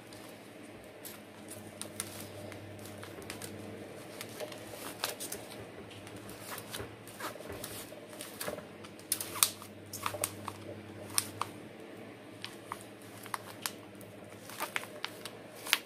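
Irregular clicks, crackles and rustles of hands pressing bark pieces and sphagnum moss into a clear plastic pot around an orchid, the plastic crinkling under the fingers; the clicks grow more frequent and louder in the second half, over a steady low hum.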